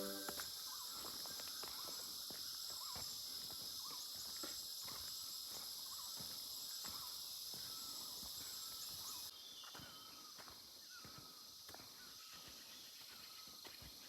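Faint footsteps on a trail, with short repeated chirps and a steady high insect drone that cuts off abruptly about two thirds of the way through.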